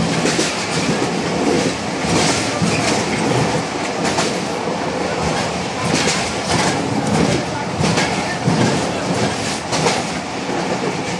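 Moving passenger train heard from inside the carriage: a steady running rumble and rush, with a sharper clack of the wheels over rail joints every second or few.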